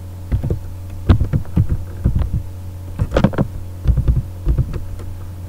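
Typing on a computer keyboard: an irregular run of dull keystroke knocks, over a steady low electrical hum.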